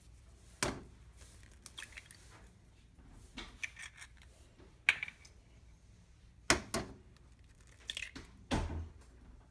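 Raw eggs being cracked open over a pot: several sharp knocks, the loudest about five and six and a half seconds in, with smaller clicks of shell between and a dull thump near the end.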